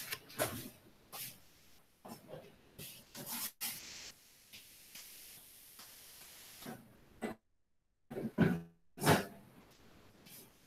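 Short, scattered faint noises on an open video-call microphone: breaths, small clicks and a brief muffled sound about eight and a half seconds in.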